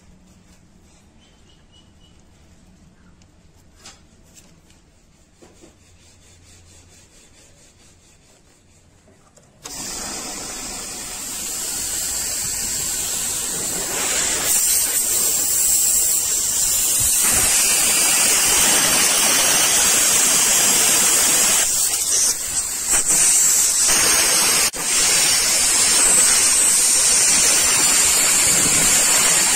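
Compressed air from an air compressor hissing as it is blown through the inside of an airbrush body to clean it out. The hiss starts abruptly about ten seconds in, builds over the next few seconds, then holds steady with a few brief dips near the end.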